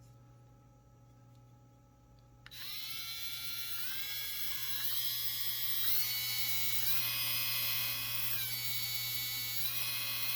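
A cordless mini rotary tool (engraving pen) switches on about two and a half seconds in and runs with a high whine whose pitch steps up several times as its five-speed control is clicked through the settings, then shifts between speeds near the end.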